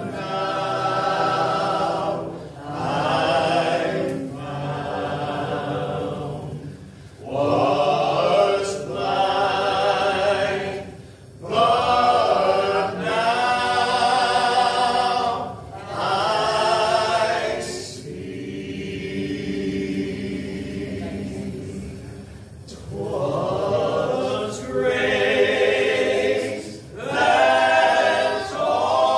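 A group of men singing gospel in close harmony, in phrases of a few seconds with short breaks between them. A softer held chord comes about two-thirds of the way through.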